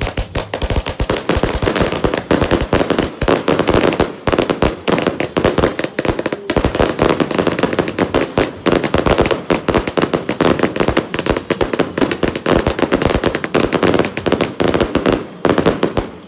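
A long string of firecrackers going off in a rapid, continuous crackle of bangs, many a second, stopping suddenly shortly before the end.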